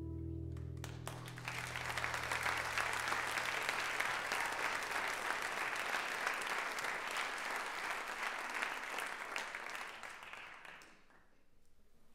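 The last held notes of the music die away, then an audience applauds: the clapping builds within a couple of seconds, holds, and fades out near the end.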